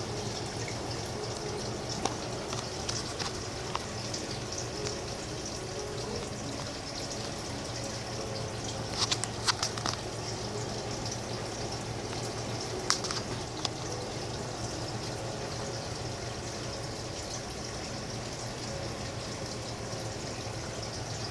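Steady rush of running water, with a few sharp clicks about nine and again about thirteen seconds in.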